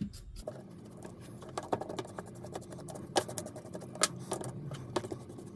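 Small paintbrush scrubbing dust out of an opened power screwdriver's housing: a quick, scratchy patter of bristle strokes with a few sharper clicks.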